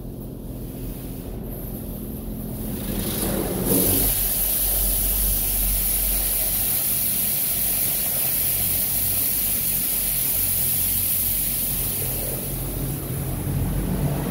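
High-pressure rinse jets of a touchless car wash blasting water onto the van, heard from inside the bare metal cargo area: a loud, steady hissing rush over a low rumble that starts suddenly about four seconds in, after a quieter steady hum.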